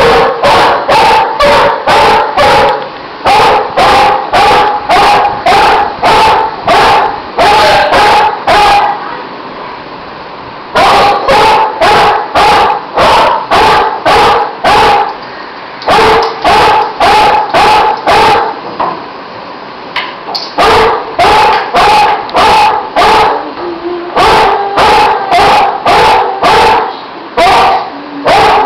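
Mother dog barking at a person to keep him away from her puppies. The barks are loud and come in long runs of about two a second, with a pause of about two seconds roughly a third of the way in.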